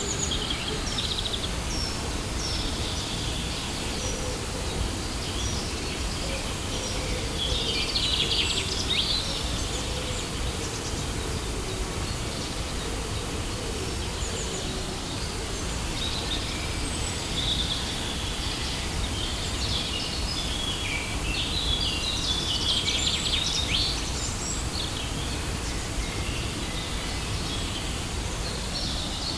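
Steady rushing of a waterfall, with birds chirping and twittering over it throughout, busiest about eight seconds in and again a little past twenty seconds.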